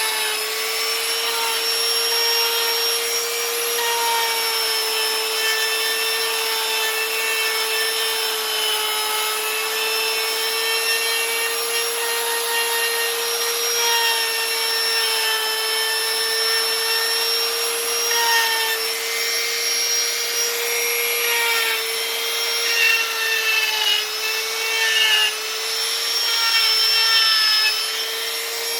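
Small high-speed electric rotary carving tool running with a steady high whine while its bit grinds into wood. The pitch sags and the grinding gets louder a few times near the end as the bit bears down.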